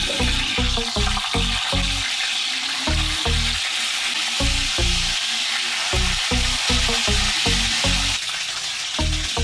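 Whole tilapia frying in hot oil in a pan, sizzling steadily and loudly, with background music's bass beat underneath.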